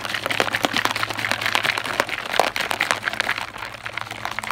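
Liquid sloshing and splashing inside a capped plastic water bottle as it is shaken hard to mix in drink powder: a fast, uneven run of sloshes.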